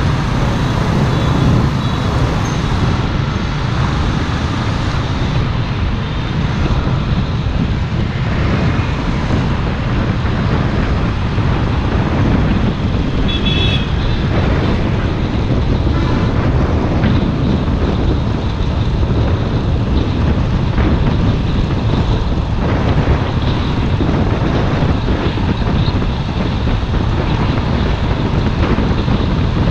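Steady, loud road and traffic noise, heaviest in a low rumble. A short high-pitched tone sounds briefly about 13 seconds in.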